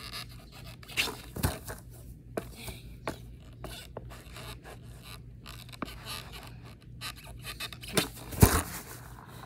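Skateboard kickflip attempt on grass: scuffs and light knocks of shoes working the board, then a heavy thud about eight and a half seconds in as the flipped board and feet come down on the grass.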